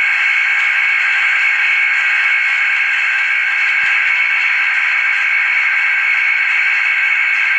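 Vacuum pump running steadily, a continuous droning hiss as it draws air out of a clear acrylic vacuum chamber, pumping it down toward 0.1 atmosphere.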